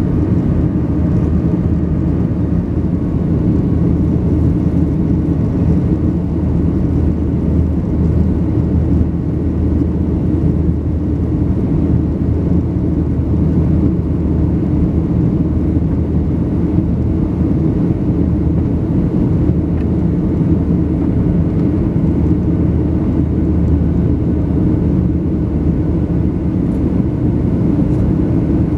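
Steady cabin roar of a Boeing 737-700 in flight, heard from a seat over the wing: CFM56-7B turbofan engine noise and airflow, with a low, even hum.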